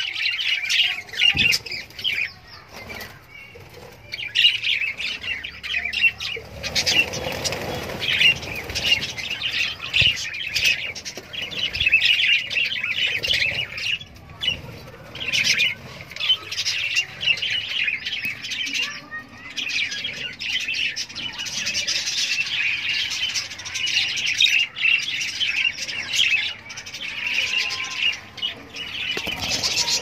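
A flock of budgerigars chattering and warbling together: a dense, continuous twitter of many short calls, mixed with flapping wings.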